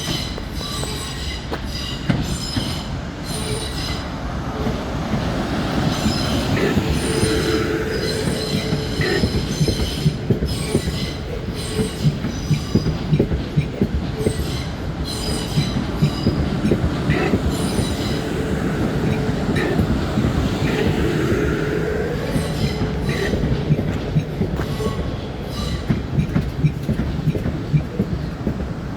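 A train rolling past on the rails for the whole stretch, its wheels clicking over rail joints again and again, with a high-pitched wheel squeal coming and going.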